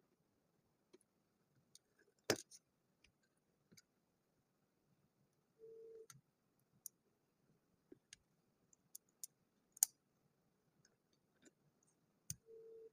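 Plastic building bricks clicking and snapping against each other as they are handled and fitted, with scattered small clicks and sharper snaps about two seconds in and near ten seconds. A short, steady low tone sounds twice, about six seconds in and at the end.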